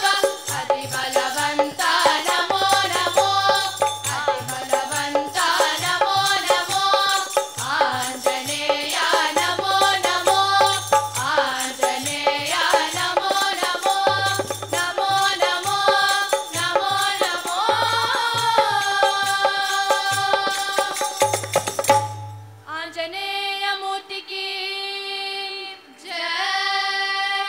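Children's group singing a devotional bhajan in unison, with a hand drum keeping a steady rhythm. About 22 seconds in the drum stops, and the voices go on more slowly over a steady drone.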